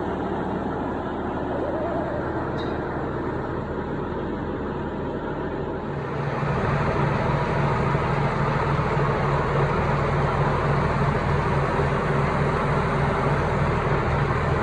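Tractor engine running steadily under load while lifting a heavy load on its loader, revving up and getting louder about six seconds in.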